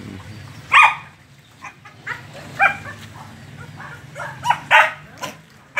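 A dog barking: a string of short barks at uneven intervals, the loudest about a second in and another near the end.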